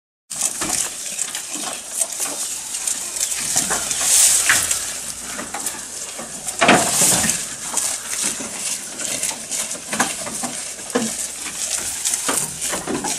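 Several goats tearing and chewing long green fodder leaves: a steady crunching and rustling with frequent sharp snaps of leaves.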